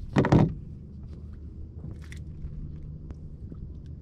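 A sharp knock on the aluminium boat shortly after the start, then a few faint clicks of handling gear and a freshly caught small bass, over a steady low rumble.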